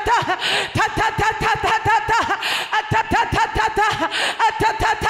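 A woman's voice travailing in prayer: rapid staccato cries, several a second, each rising and falling in pitch, broken every couple of seconds by a sharp in-breath, sounding like shivering.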